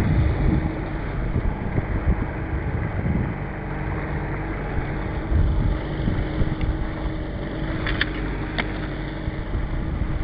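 Outboard motor running steadily as the boat trolls, a constant low hum. Two sharp clicks come about eight seconds in.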